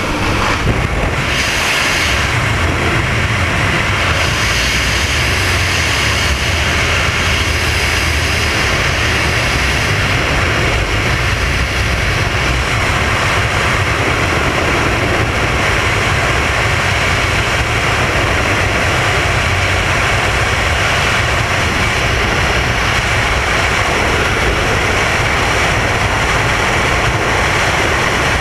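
Loud, steady rush of freefall wind over a skydiver's helmet-mounted camera microphone.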